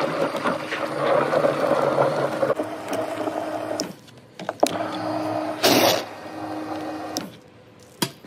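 A pressure-washer jet is sprayed into a bucket of water and car shampoo, churning it into foam over the running washer's steady hum. The spray stops about four seconds in. The hum carries on, with a short loud burst of hiss near six seconds, and the sound drops away shortly before the end.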